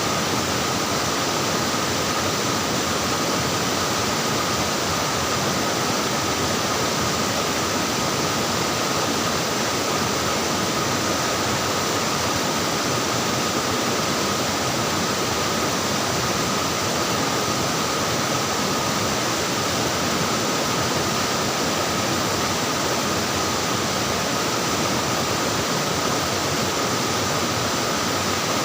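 Water flowing and splashing in a forest stream, a steady, unbroken rush.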